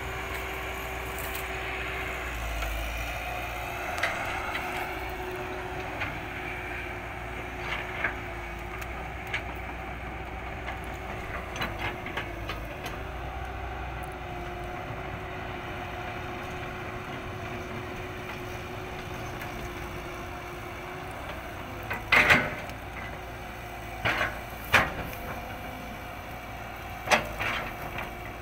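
CAT hydraulic excavator's diesel engine running steadily, with a few small ticks and, in the last several seconds, a handful of sharp, loud cracks of wood breaking as the machine works the felled tree.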